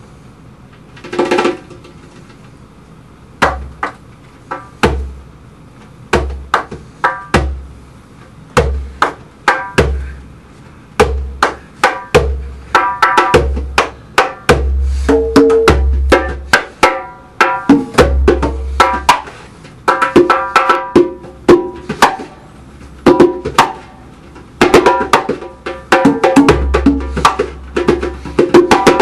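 Solo hand drum played with bare hands, deep bass strokes alternating with sharp ringing slaps. The strokes come one at a time at first and grow denser and louder into a driving rhythm from about halfway.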